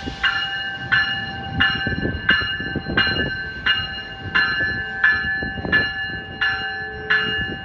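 New Jersey Transit multilevel train's warning bell ringing steadily, about three strikes every two seconds, as the train pulls out of the station. A steady whine and the low rumble of the moving cars run underneath, and the bell stops near the end.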